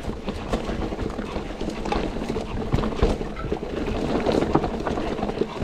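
Mountain bike riding down a rough trail: tyres running over dirt and stones, with a dense, irregular clatter of knocks and rattles from the bike.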